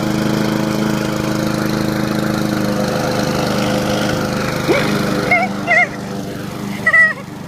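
Gasoline walk-behind lawn mower engine running steadily at a constant pitch. From about five seconds in there are a few short, wavering high-pitched calls over it.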